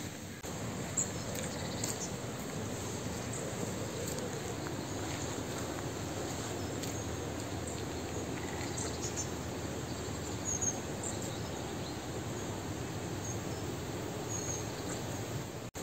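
Steady outdoor background noise with faint, short high bird chirps scattered through it now and then.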